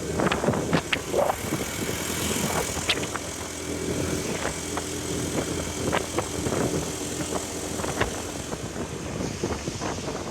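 Motor scooter running along the road, heard from the pillion seat with wind rushing over the microphone, its engine a steady hum, and scattered sharp knocks and ticks throughout.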